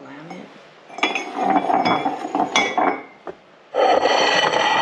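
Ceramic bowls and plates clinking and clattering as they are handled and stacked, then a longer scraping rub of dish on dish near the end.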